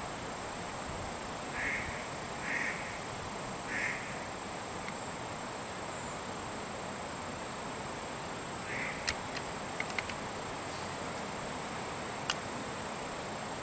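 Four short duck quacks over a steady hiss, followed near the end by a few sharp clicks.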